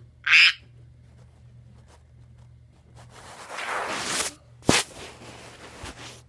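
A stuffed teddy bear slapped by the spinning blades of a ceiling fan: a short, loud hit about half a second in. Later comes a rushing noise of fast handling, a sharp knock, and a weaker knock near the end, all over a low steady hum.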